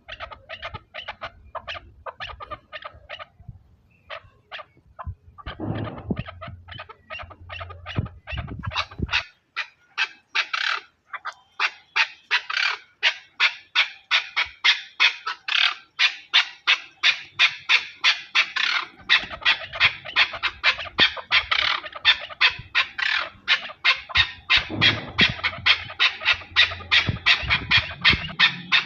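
Chukar partridge calling: a long run of short, rapidly repeated notes, about three a second, scattered at first and then steady and louder after about ten seconds.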